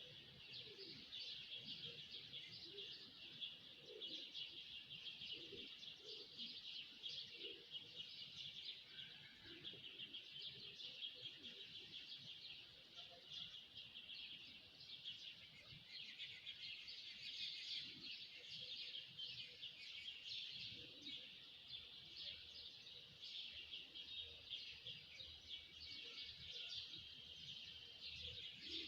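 A dense chorus of many small birds chirping at once, continuous and overlapping, fairly faint.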